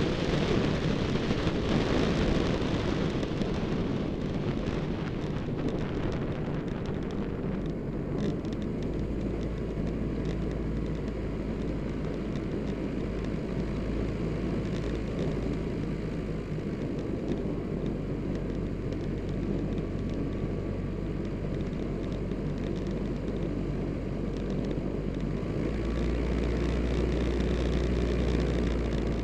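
Earthstar JT2 Thunder Gull ultralight's engine and propeller running steadily, with the rush of air over the airframe-mounted camera. The sound is a little louder for the first few seconds and again near the end.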